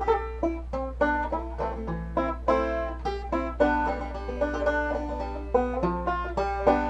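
Background music: a quick tune on a plucked string instrument, note after note.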